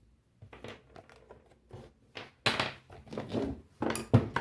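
Handling noise from an electric fan motor being taken apart: a series of irregular knocks, clicks and light rattles as the motor and tools are moved about, the loudest knock about halfway through.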